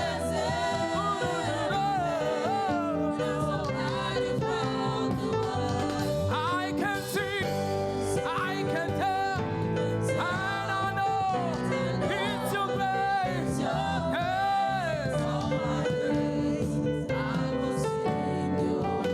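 Gospel praise music from a church choir: voices singing melodic lines that slide and waver, over instruments holding steady chords.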